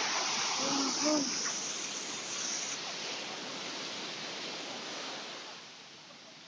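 Ocean surf: a wave breaks and washes up a sand beach with a loud, broad hiss that slowly dies away over about five seconds.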